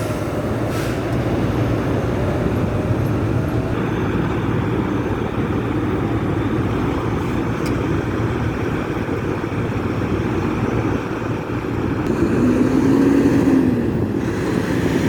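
Steady rumble of trucks and road traffic. About twelve seconds in, one engine swells in pitch and loudness, then fades.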